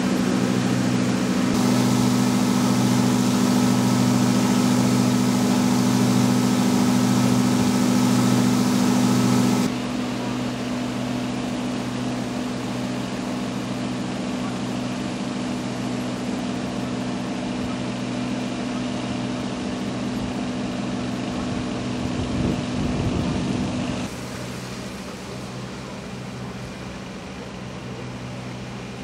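Steady engine drone running throughout. For about the first ten seconds it is joined by water gushing from a flood pump's discharge hose into standing floodwater, and after that the whole sound is quieter.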